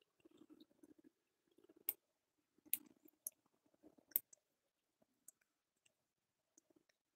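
A person chewing food with the mouth open, soft wet chewing with several sharp clicks from the mouth about two to four seconds in, then only a few small ticks.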